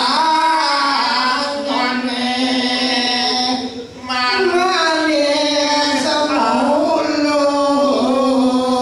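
A single voice singing a slow Balinese chant-like melody in long, held, wavering notes that slide up and down, with a short break about four seconds in.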